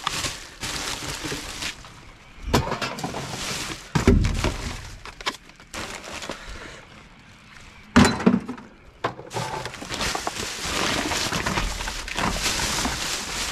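Rummaging through rubbish in a dumpster: bags and debris rustle while items are shifted, with several sharp knocks and clinks, the loudest about eight seconds in.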